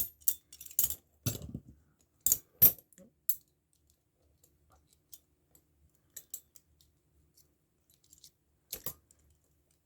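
Heavy steel chains and locks clinking as they are handled: a run of sharp metallic clinks in the first few seconds, faint scattered ticks, then a couple more clinks near the end.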